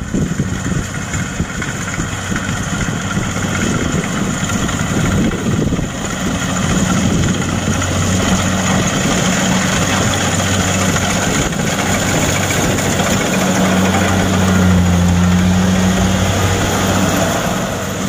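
Kubota DC-70 PLUS rice combine harvester running as it cuts and threshes rice: a steady diesel engine drone over the dense noise of its working cutter and threshing machinery.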